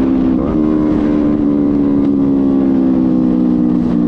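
Sport motorcycle engine running at road speed, with wind noise on the microphone. The engine note rises briefly about half a second in, then sinks slowly as the bike eases off.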